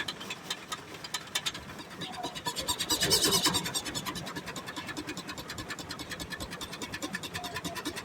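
Steam-powered sawmill machinery running with a rapid, even beat of clicks, several a second, and a brief louder rush about three seconds in.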